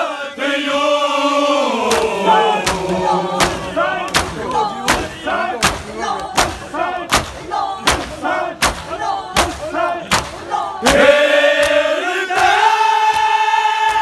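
Men's voices chanting a noha together, with rhythmic matam, open hands striking chests in unison about every three-quarters of a second, from about two seconds in until about eleven seconds in. The group then breaks into a loud, drawn-out chant.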